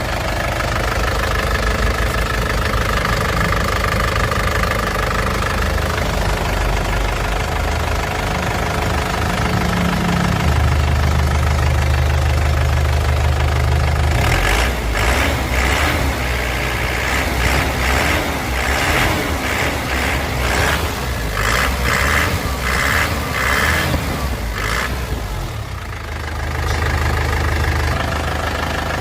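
Isuzu Panther LS Turbo's four-cylinder turbodiesel engine running with a diesel knock. It idles steadily, then from about halfway through its speed rises and falls in a series of revs. Near the end it settles back to idle.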